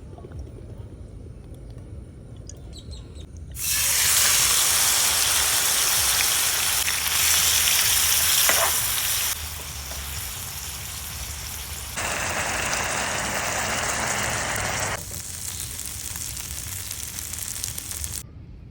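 Meat sizzling as it fries for shawarma: a loud, even hiss that starts a few seconds in and jumps up and down in level several times.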